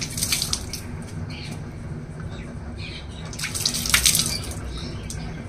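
Water splashed by hand from a steel mug over a cow's udder and teats, splattering and dripping into a plastic bucket below, as the udder is washed before hand milking. The splashing runs on, with two louder surges, one just after the start and one past the middle.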